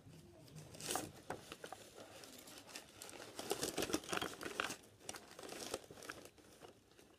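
Sheets of paper rustling and crinkling as they are leafed through and pulled from a pile, in irregular bursts, loudest about a second in and again around four seconds in.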